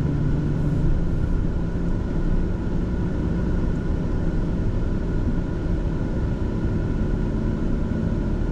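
Steady in-cab running noise of a 2004 Chevy Silverado pickup being driven: engine and road rumble with the AC blower running.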